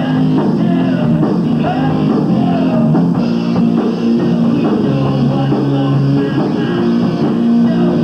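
Live rock band playing loud: electric guitars, bass and drum kit in a full, continuous wall of sound, as picked up by a camcorder microphone in a small club.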